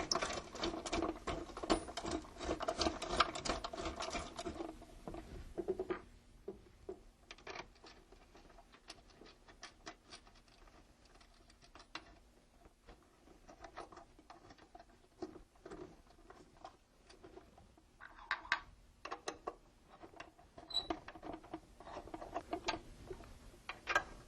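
Hands fitting a control panel's metal bracket onto an embroidery machine arm and threading in Allen screws: irregular small clicks, taps and scrapes of metal parts and a hex key, busier for the first few seconds, then scattered single clicks.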